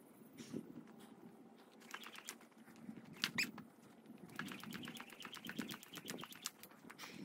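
Jump rope skipping: the rope ticks against the ground in a fast, even patter, with the soft thud of feet landing under it, and one louder tick a little over three seconds in.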